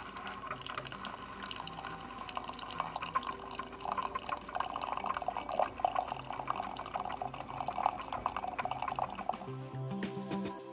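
Keurig single-serve coffee maker pouring a thin stream of brewed coffee into a ceramic mug, a steady trickling splash, under background music. The pouring stops near the end.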